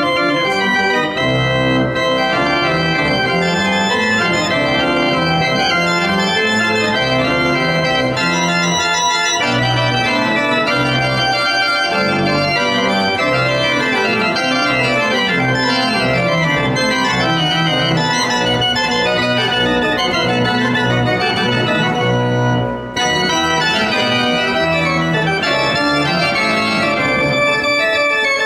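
Church pipe organ played loudly, with many quickly changing notes over held chords and one brief break about three quarters of the way through.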